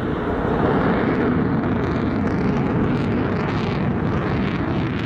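Jet noise from a Panavia Tornado's twin Turbo-Union RB199 turbofans flying overhead: a loud, steady rumble without pauses.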